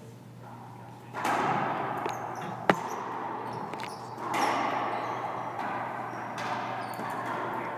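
Racquetball rally: hard hits of the rubber ball off racquets and court walls, each one echoing in the enclosed court. The sharpest, loudest crack comes nearly three seconds in.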